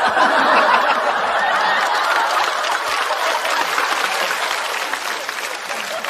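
Studio audience applauding and laughing in response to a punchline. The applause swells quickly at the start, then slowly tapers off.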